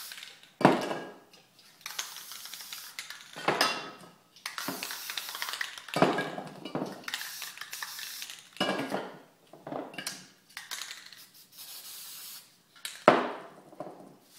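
Aerosol spray-paint can hissing in repeated bursts of a second or two, with several sharp knocks between the bursts, the loudest near the start and near the end.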